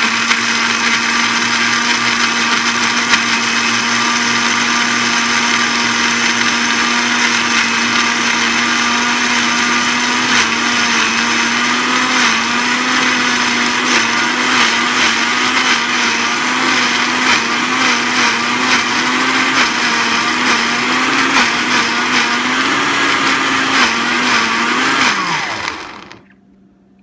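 Countertop blender running, crushing frozen cranberries and ice with syrup into a slush. The motor's hum holds steady, wavers from about halfway as the load shifts, and winds down with a falling pitch near the end.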